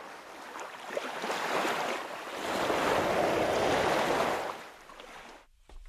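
Ocean surf washing in: a steady rushing wash that swells twice and fades out near the end.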